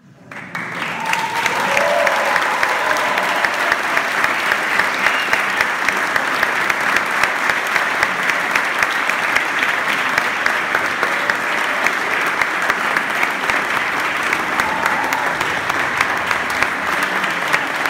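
Audience applauding: dense, steady clapping that starts suddenly and builds to full strength within about a second and a half.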